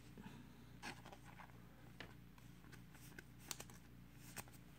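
Faint handling of baseball cards: soft rustles and a handful of light ticks as the cards and a plastic card sleeve are moved, over near silence.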